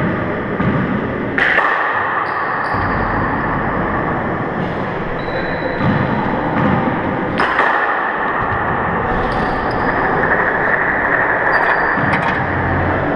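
A handball striking the court with two sharp smacks about six seconds apart, over steady echoing court noise.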